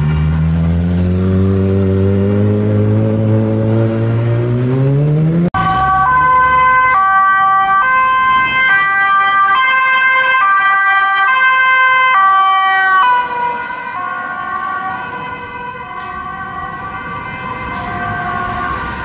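A vehicle engine accelerating, its pitch rising steadily for about five seconds, then an abrupt cut to a police car's two-tone siren alternating between a high and a low note. About thirteen seconds in the siren gets quieter as the car moves away.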